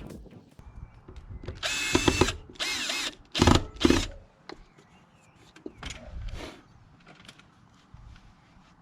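Cordless drill running in about four short trigger bursts, its motor speed rising and falling, while screws are driven to fix the water heater in place; a couple of fainter bursts follow.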